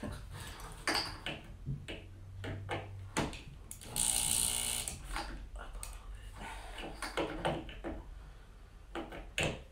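Green electric power drill running briefly about four seconds in, working into the wooden base of a drum carder. Sharp clicks and knocks from handling the drill and parts come before and after it.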